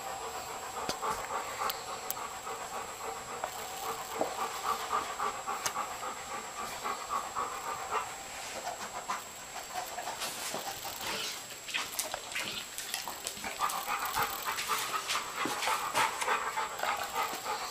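A dog panting quickly, with a few sharp clicks.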